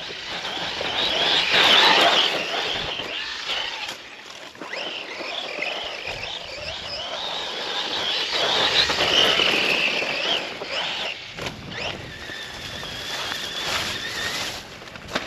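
Electric RC off-road truck driving, its brushless motor whining up and down in pitch over a hiss of tyres on ground, louder in two surges about two seconds in and about nine seconds in.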